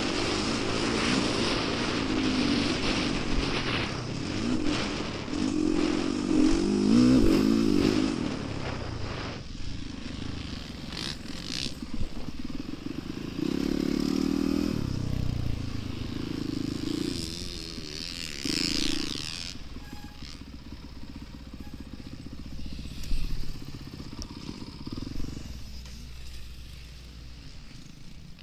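Motocross bike engine revving hard with the pitch climbing and falling through the gears. After about nine seconds it eases off to quieter running, with a couple of shorter bursts of throttle, and settles lower near the end.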